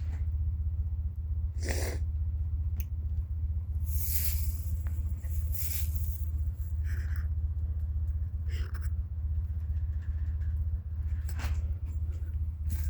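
A steady low hum, with short breathy puffs of an animal sniffing at intervals of one to two seconds.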